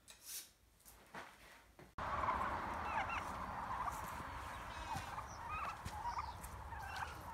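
A couple of faint strokes of a knife drawn through a hand-held sharpener. Then, from about two seconds in, a flock of turkeys calls with short, scattered rising chirps over a steady hiss.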